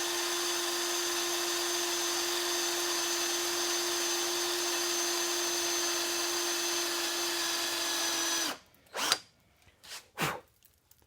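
Electric drill running steadily with a start bit, cutting a pilot hole into a snapped-off mirror stud for a screw extractor. It is going down well. The drill stops suddenly about eight and a half seconds in, followed by a few short knocks.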